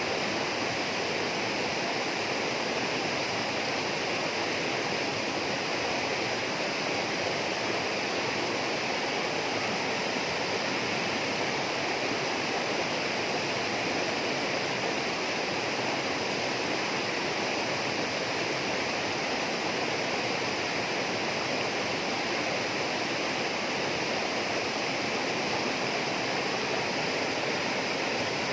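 Tropical rainforest ambience: a steady, unbroken rush of flowing water, with a constant high-pitched hum above it.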